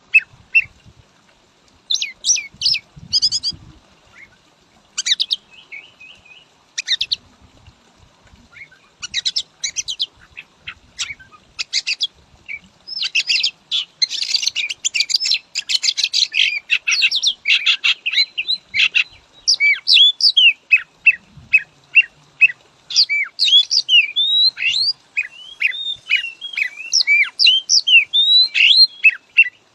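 Oriental magpie-robin (kacer) singing: short bursts of quick chirps and whistles with gaps at first, then from about halfway a nearly unbroken run of rapid, varied whistled notes that sweep up and down.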